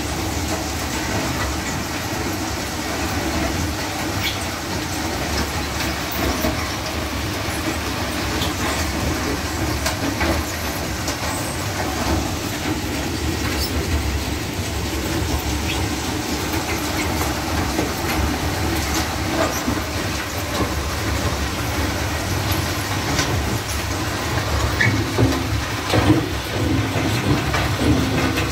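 "Dachs" wood-chip screw conveyor running: the auger turns in its trough and carries the chips along, a steady mechanical rumble with scattered clicks and rattles of chips. The clatter grows louder near the end.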